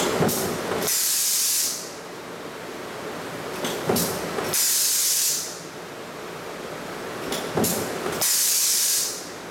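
Stamping press cycling a die, three strokes about every four seconds: each a sharp knock, followed moments later by about a second of loud compressed-air hiss, over the steady running noise of the press.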